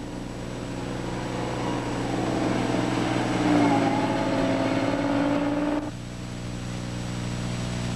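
Motor grader's diesel engine running under load while grading. The engine note grows louder toward the middle, then drops suddenly about six seconds in and carries on more quietly.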